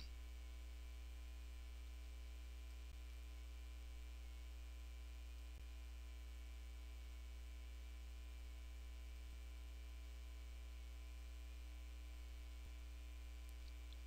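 Steady low electrical mains hum with a faint buzz of higher overtones, unchanging throughout.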